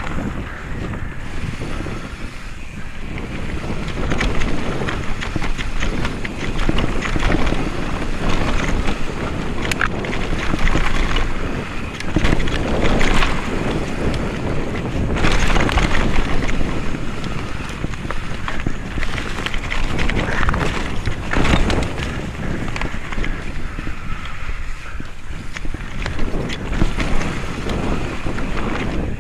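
Mountain bike descending a rough dirt trail at speed: wind rushing over the action camera's microphone, with tyre noise and constant rattles and knocks from the bike over roots and rocks.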